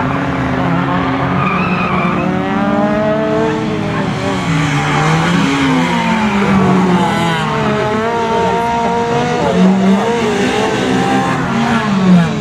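Honda Civic 1.6 four-cylinder petrol engine being driven hard on a circuit, its pitch climbing and dropping again and again as the car accelerates, shifts and slows for corners, with some tyre squeal.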